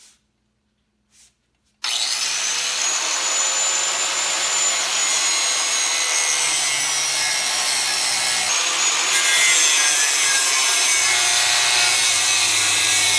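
A DeWalt angle grinder with a thin cutting disc starts up about two seconds in, its whine rising as it spins up, then cuts into cast bronze. The cutting makes a loud, harsh grinding noise under a steady high whine.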